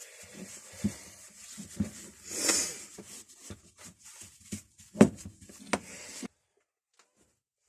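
Parts of a cast-iron bench vice being handled and wiped down with a cleaning wipe: scattered knocks and clunks, a rubbing swell about two and a half seconds in, and one sharp knock about five seconds in. The sound cuts off suddenly about six seconds in.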